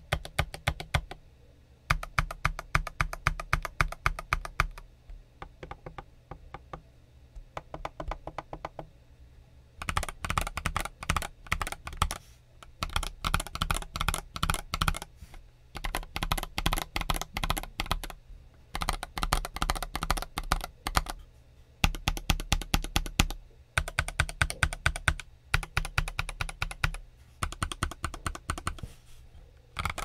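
Typing on a stock Skyloong GK75 mechanical keyboard with Glacier Silver switches and PBT OEM dye-sub keycaps: rapid key clacks in runs of a few seconds broken by short pauses, softer for a stretch a quarter of the way in.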